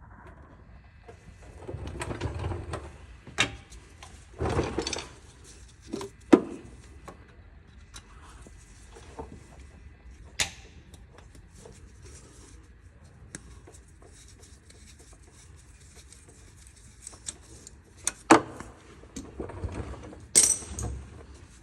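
Intermittent clinks, clicks and knocks of metal tools and car parts being handled, with a few short scraping or rustling spells between them.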